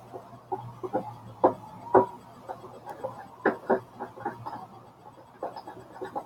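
Glitter-glue slime being mixed as it is activated with boric-acid water: irregular short clicks and knocks, a few a second, over a faint low hum.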